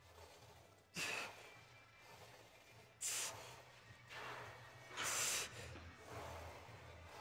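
A man breathing hard with sharp, forceful exhalations roughly every two seconds, the loudest about a second in, about three seconds in and around five seconds in, with softer breaths in between.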